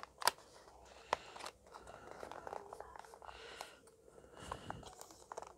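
Hands handling a new mobile phone and its packaging: two sharp clicks in the first second or so, then soft rustling and small taps.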